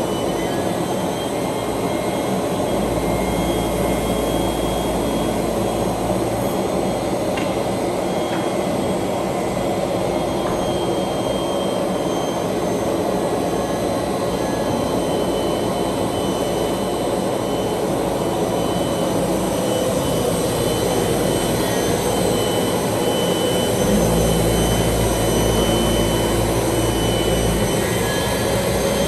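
Brush sanding machine running, a loud steady whir from its spinning sanding brushes. A deeper hum joins for a few seconds twice, about three seconds in and again near the end.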